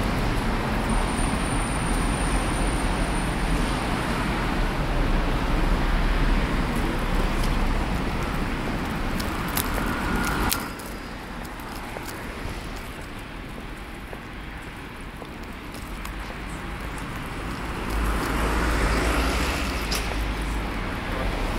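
Road traffic noise on a city street, with wind rumbling on the microphone. The rumble and noise drop off abruptly about halfway through and swell back near the end.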